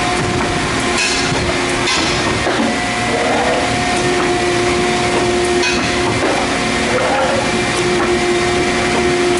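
Sunrise CNC punch-and-shear machine punching holes in flat plate: a steady machine hum in two tones, with a few sharp punch strokes, about a second in, near two seconds, and again near the middle.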